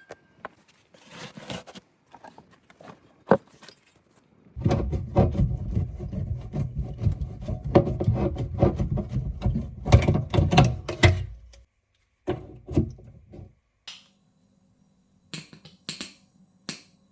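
Hand tools working on copper pipework: a few scattered clicks, then a loud run of rapid scraping and clicking lasting about seven seconds, followed by a few shorter bursts.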